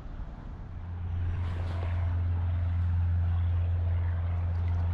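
A low, steady engine drone that swells over the first two seconds, then holds at an even pitch.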